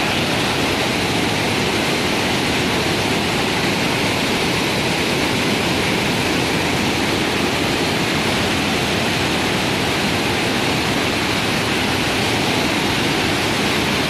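Waterfall in flash flood, muddy floodwater pouring over rock ledges in a loud, steady rush.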